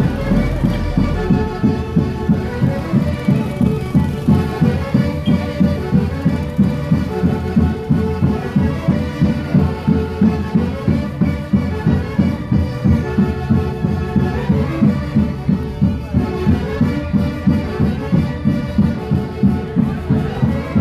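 Live festival band music of the orquesta típica kind, with wind instruments playing a repeating melody over a steady, fast beat of about two pulses a second.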